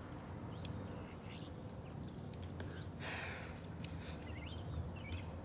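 Faint wet mouth and tongue sounds of two people kissing with their tongues out, with a short breath about three seconds in as they pull apart. Under it, a low steady outdoor hum and a few faint high chirps.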